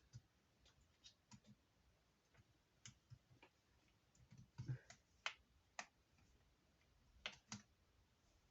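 Faint, scattered clicks and small plastic taps of fingers and nails prying at a stuck battery connector inside an open laptop, with a busier run of clicks about halfway through and two more near the end.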